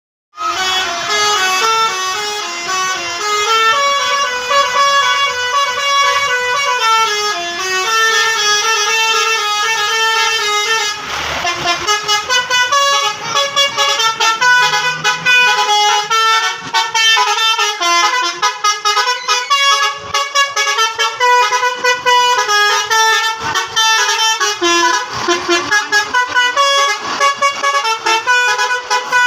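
Bus 'telolet' multi-tone horn (Basuri type) playing a tune, its notes stepping up and down in pitch in quick runs. There is a brief noisy rush about eleven seconds in.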